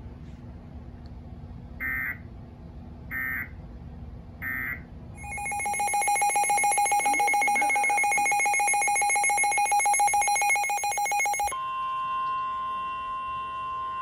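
Three short raspy bursts of Emergency Alert System digital code, then a Midland NOAA weather radio sounding its rapidly pulsing alarm for a flood warning. About eleven and a half seconds in, the pulsing gives way to a steady single alert tone.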